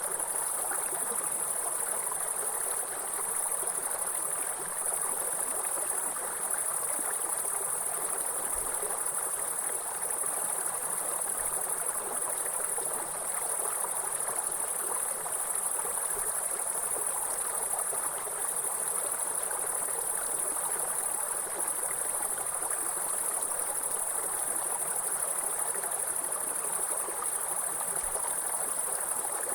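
Mountain stream running steadily, with an even rush of water. Over it is a continuous high-pitched drone of insects.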